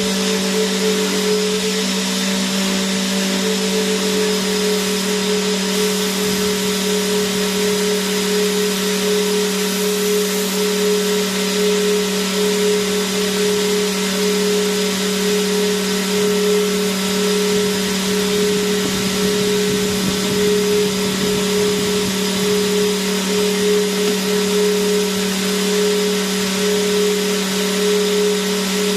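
Vacuum cleaner motor running steadily: an even rushing hiss with a constant hum and whine underneath.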